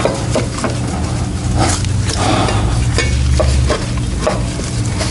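Gloved hands working at a tractor's oil filter mount while fitting a new spin-on filter: irregular rubbing, scraping and light clicks of the filter and hands against the metal parts, over a steady low hum.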